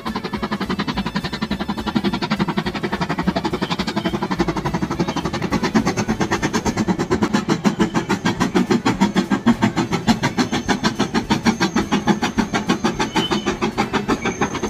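Steam locomotive hauling carriages across a viaduct, its exhaust chuffing in a fast, steady rhythm of about six beats a second.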